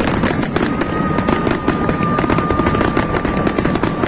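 Fireworks crackling and popping in a dense, continuous barrage, with a thin steady high tone held for about three seconds from about a second in.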